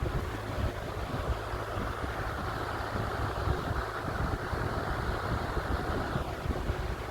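A 10-inch three-speed box fan running: a steady rush of air over a low motor hum, with the airflow buffeting the microphone. The rush eases slightly about six seconds in.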